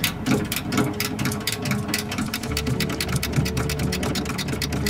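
Background music: a fast, even ticking rhythm, about eight beats a second, over held low notes that change about halfway through.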